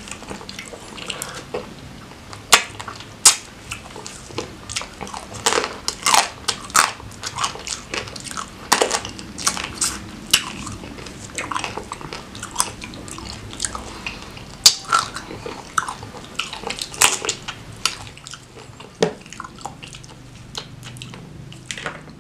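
Close-miked eating of crab meat in thick Padang sauce: wet chewing and mouth sounds broken by irregular sharp crunches and clicks, thinning out near the end.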